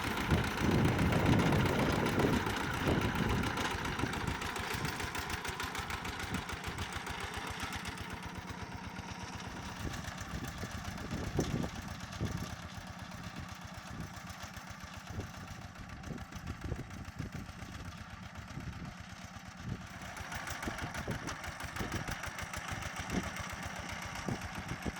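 Zubr walk-behind tractor engine running steadily with its rotary tiller, louder for the first few seconds.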